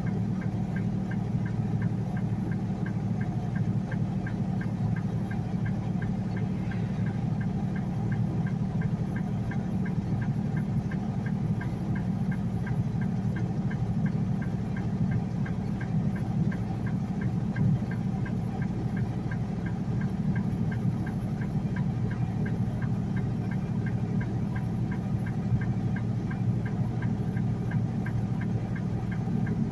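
Semi truck's diesel engine running steadily under way, heard from inside the cab, with a light, even ticking about twice a second.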